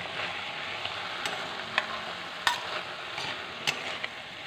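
Chopped bottle gourd stems, greens and potatoes sizzling as they fry in a metal wok, stirred with a metal spatula that scrapes and clinks against the pan four or five times.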